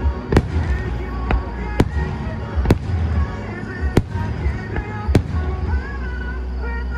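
Aerial firework shells bursting in a string of about six sharp bangs, irregularly spaced, the last about five seconds in. Music plays underneath throughout.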